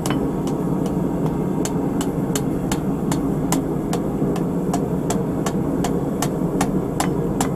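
Hand hammer striking the hot end of a 3/8 in round steel bar in quick, light, even blows, about three a second, upsetting it. Under the blows is the steady roar of the running forge.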